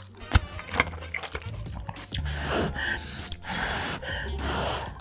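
Close-miked eating of cheesy tteokbokki: a sharp wet mouth click near the start, then a few long breathy puffs of air as the eater blows on the hot, cheese-covered rice cakes.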